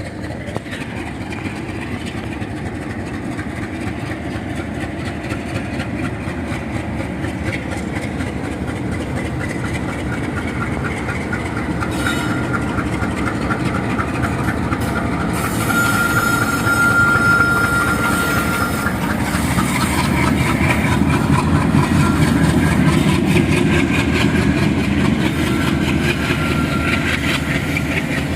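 Twin ALCO WDM3D diesel-electric locomotives, working together, chugging as they pull away with a passenger train. Their engine sound grows louder through the second half. A steady high-pitched tone with a hiss sounds for about three seconds in the middle.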